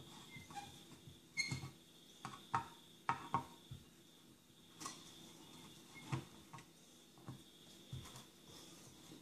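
Faint, irregular clicks and scrapes of a screwdriver working the saw-nut screws of a wooden handsaw handle, with light knocks as the saw is handled. The loudest clicks come in the first three and a half seconds.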